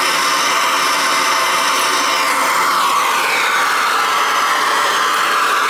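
Steady hiss of a hose-fed plumbing torch flame heating a soldered copper pipe joint to melt the solder so the pipe can come apart. Its tone sweeps downward a couple of seconds in and upward again near the end.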